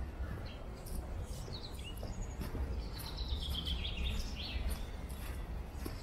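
A small songbird sings a short falling trill of high notes about three seconds in, after a brief call a second earlier. Under it, footsteps tick steadily on dry leaf litter over a low rumble.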